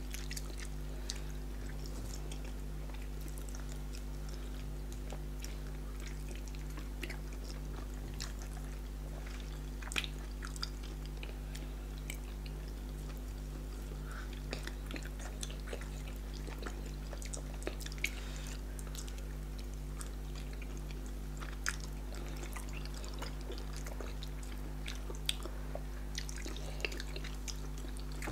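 Two people eating fufu and pepper soup with their fingers: scattered soft chewing, lip smacks and small wet clicks as fingers dip into the soup and are licked, over a steady low hum.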